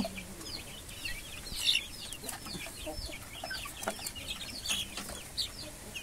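Young free-range chicks peeping: many short, high, falling peeps from several birds, coming in a quick, uneven run.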